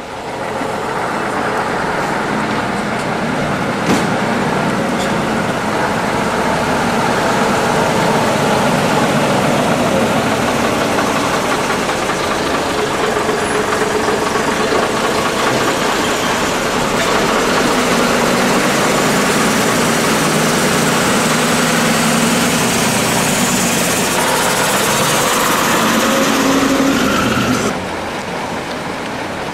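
Vintage double-decker bus diesel engine running as the bus moves off and drives along the street, its engine note rising and falling. The sound drops suddenly to a quieter engine background near the end.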